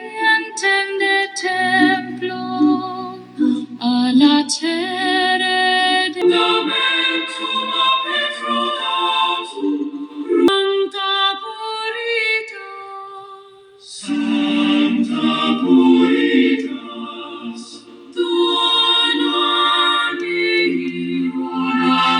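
A song with singing played through a small rechargeable portable Bluetooth speaker during its sound test. The music dips briefly about two-thirds of the way through and then comes back in.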